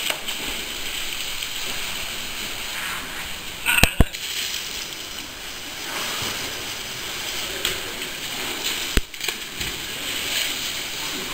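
Water sloshing and splashing, with two sharp knocks in quick succession about four seconds in and another about nine seconds in.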